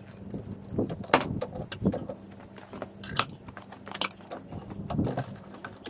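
Irregular metallic clinks and rattles of a steel jack stand and trolley jack being handled as the car is let down off its stands.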